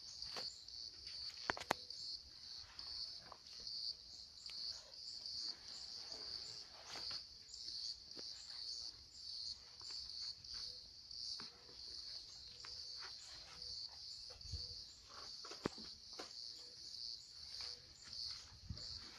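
Crickets or similar insects chirping in a steady, even pulse, with scattered clicks, rustles and snaps of movement through brush, two sharp ones about a second and a half in.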